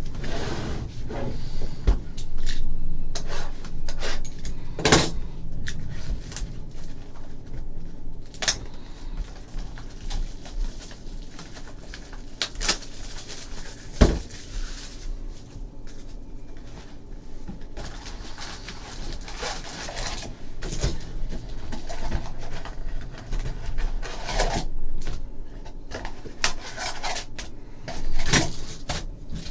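2014 Panini Contenders football hobby boxes being opened by hand and their packs pulled out and stacked: cardboard and foil packs rustling and scraping, with scattered light knocks and one sharper knock about halfway through.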